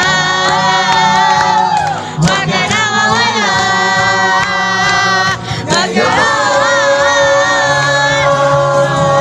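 Music: a singer holding long, wavering notes over instrumental backing, with short breaks between phrases about two and five and a half seconds in.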